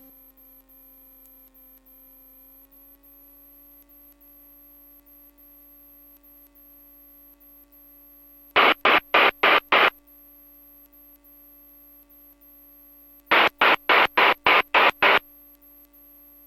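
Aircraft headset intercom audio: a faint steady electrical whine with a slight step up in pitch near the start, broken twice by rapid strings of loud radio noise bursts, about five and then about eight in quick succession.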